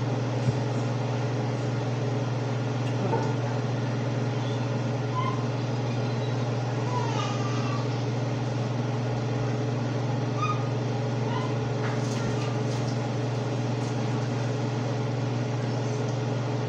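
A steady, unbroken low mechanical hum, like a motor or fan running, with a few faint short high calls now and then.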